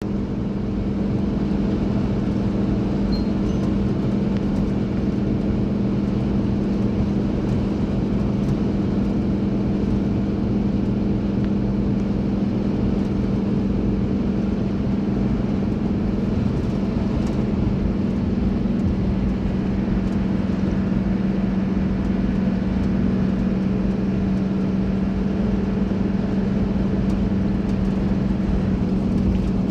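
Steady engine and road noise heard inside the cabin of a moving vehicle, with a constant low hum.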